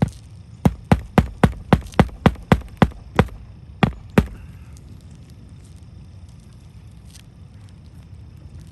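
Hammer driving roofing nails into asphalt shingles: a quick, even run of about a dozen blows, roughly four a second, then two slower blows near the middle.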